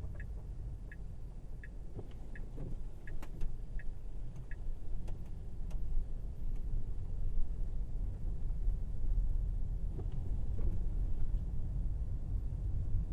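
Tesla Model Y driving, a steady low road and tyre rumble heard from the cabin. Over it, an evenly spaced tick comes about every 0.7 s, like a turn signal, and stops about four and a half seconds in.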